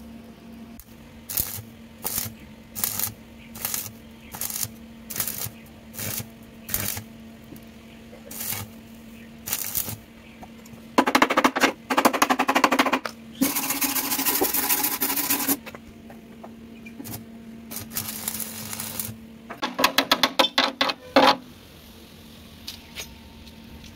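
Stick (arc) welding on the sheet-steel scooter chassis: short bursts of arc crackle, about one every 0.7 s for the first ten seconds as the rod is struck in stitches, then longer runs of crackle in the middle and a quick string of bursts near the end. A steady low hum runs underneath.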